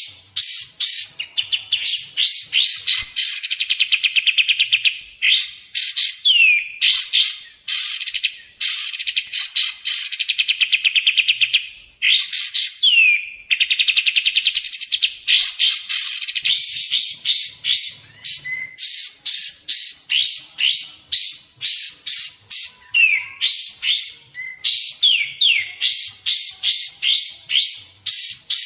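Kapas tembak bird calling continuously in fast series of sharp, high chirping notes, broken by long rapid rattling trills and a few down-slurred notes. It is a lure (pikat) recording, used to attract wild birds and to tutor caged ones.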